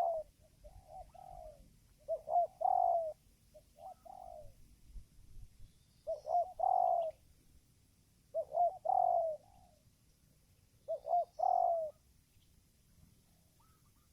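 Spotted dove (tekukur) cooing: short phrases of a few low coos, repeated every two seconds or so, with a pause near the end.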